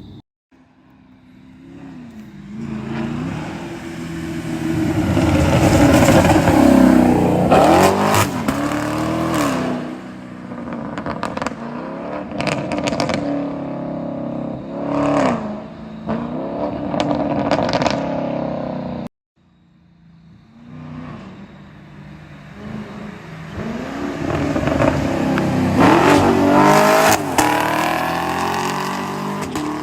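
2021 Chevrolet Camaro LT1's 6.2-litre V8 exhaust under hard throttle: revs rise and fall, swelling loud and fading as the car passes by. Sharp exhaust crackles and pops come as the throttle closes, about 7 to 10 seconds in and again near the end. The sound cuts out briefly about 19 seconds in and builds up again.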